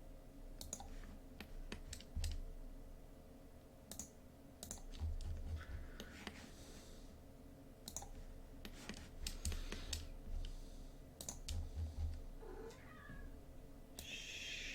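Faint computer mouse clicks and keyboard taps at irregular intervals, over a low steady hum.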